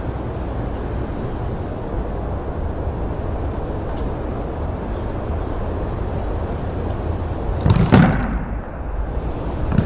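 A football slams into a concrete wall with one loud thump about eight seconds in, over steady background noise. A smaller knock follows near the end.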